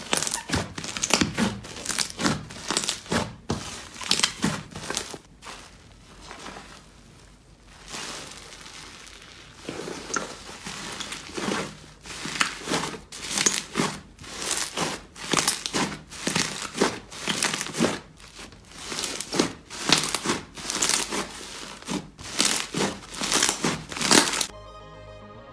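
Hands kneading and squeezing a thick white fluffy slime, making crackly, crinkling squishes in repeated presses. The presses come about twice a second in the second half, with a quieter few seconds before that, and they stop about a second before the end as music begins.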